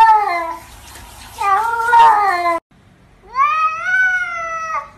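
Domestic cats meowing: three drawn-out meows. The first two fall in pitch at the end and the second is cut off short. The last, a tabby's, is longer: it rises and then holds before stopping suddenly.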